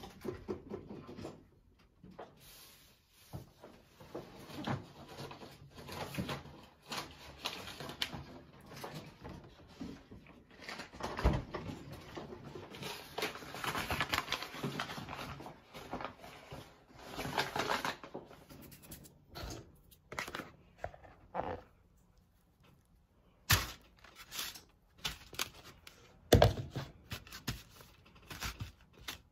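Plastic bag crinkling and paper sheets rustling as they are handled on a kitchen counter, loudest in the middle, with a few sharp knocks on the countertop near the end as the pizza dough is handled.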